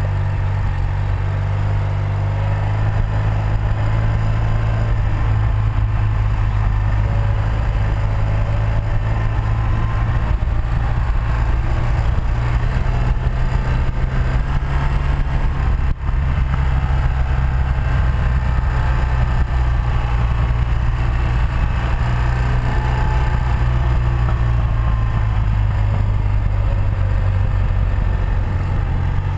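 The 1984 BMW R100RS's air-cooled flat-twin (airhead boxer) engine running steadily as the bike is ridden, with wind rush over it. The engine note holds mostly even and dips briefly about halfway through.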